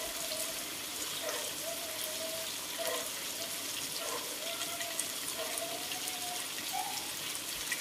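Prawns in chili paste sizzling in a steel wok over a gas flame: a steady hiss with fine crackles.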